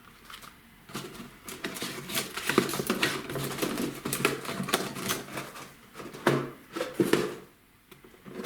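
Packaged fireworks being handled, clattering and clicking irregularly for several seconds before stopping near the end.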